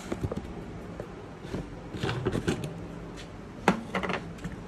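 Hands handling plastic containers and packaging: scattered clicks, taps and rustles, with a sharp click near the end, over a faint steady low hum.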